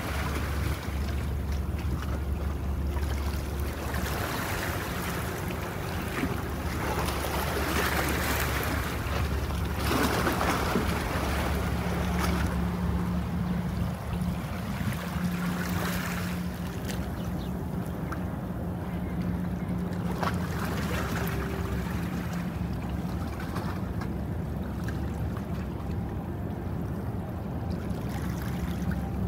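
Steady low engine rumble of a boat, with wind buffeting the microphone and water washing. A steady droning hum joins in partway through and fades out after about ten seconds.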